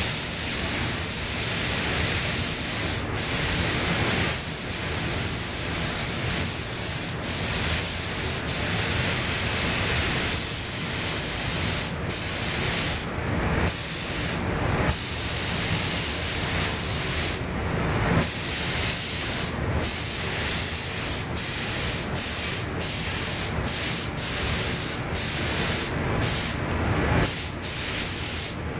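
Gravity-feed compressed-air paint spray gun spraying with a steady, loud hiss that breaks off briefly many times, more often in the second half.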